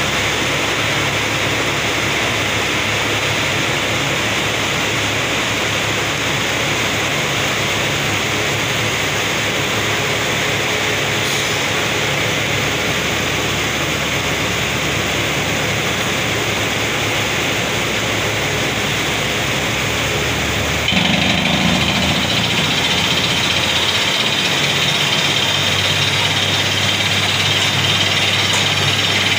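Borewell drilling machine running with a steady, loud noisy rush. About two-thirds of the way through the sound steps up, louder and brighter, with a steady low engine hum underneath.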